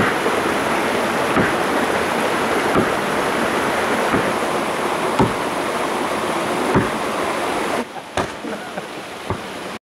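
Gränsfors Bruks axe chopping into a fallen conifer log: single sharp strikes about every second and a half, over the steady rush of a mountain stream. The stream is quieter in the last two seconds while a few more strikes land.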